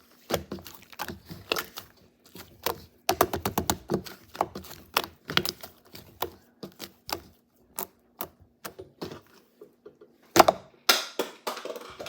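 Slime being pressed, stretched and folded by hand, giving runs of rapid clicking pops, with a louder crackling stretch near the end.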